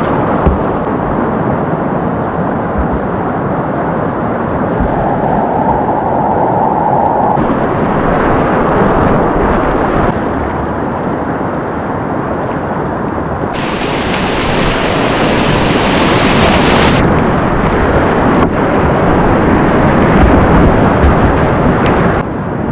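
Loud, steady rushing of whitewater river rapids, with wind buffeting the microphone; the hiss briefly brightens about two-thirds of the way through.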